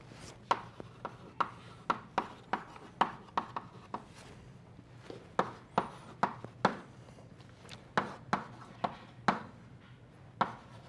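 Chalk tapping and scraping on a blackboard as equations are written: sharp taps a few a second in short runs, with a pause of about a second near the middle.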